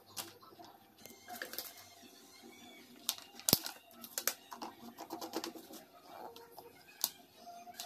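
Plastic hair-colour bottles and caps handled, and an applicator nozzle screwed onto a bottle: scattered light clicks and knocks, the sharpest about three and a half seconds in.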